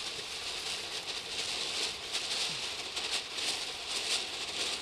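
A sparkler burning with a steady hiss and fine, irregular crackle.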